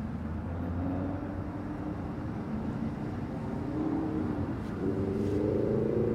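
Road traffic: a steady low rumble of passing vehicles, with an engine's note rising in pitch about five seconds in as a vehicle accelerates.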